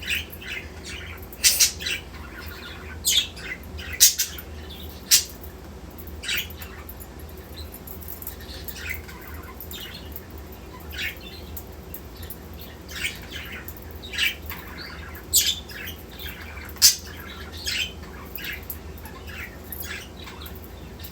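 Pet budgies (budgerigars) giving short, sharp chirps and squawks at irregular intervals, about a dozen calls in all.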